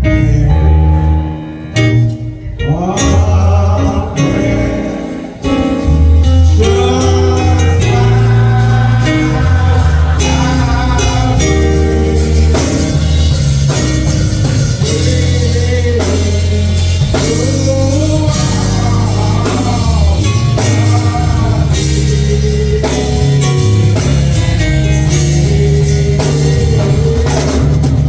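Gospel hymn performed live: sung melody over a band of guitar, bass and drums, with the singing coming in a couple of seconds in and the full band continuing after that.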